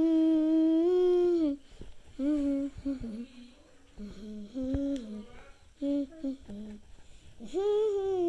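A voice humming a tune in several long held notes with short gaps between them.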